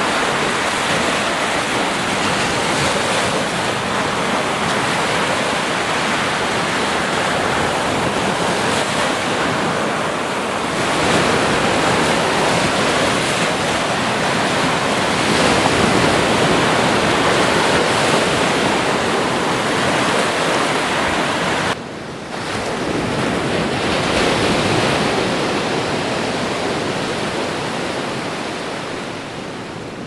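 Ocean surf breaking and washing up on a sandy beach: a steady rush of waves, with a sudden brief dip about two-thirds of the way through, then easing off near the end.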